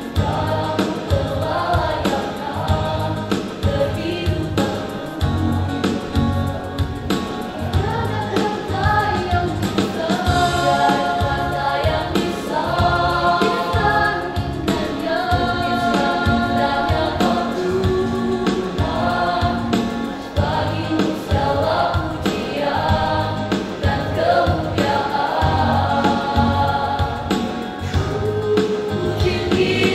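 Church youth choir of young women and men singing a gospel song together, over an accompaniment with a steady low beat.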